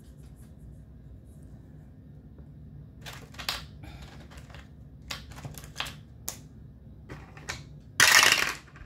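A few small clicks and scrapes, then about eight seconds in a twelve-sided and a six-sided die tumble down a dice tower, clattering for about half a second.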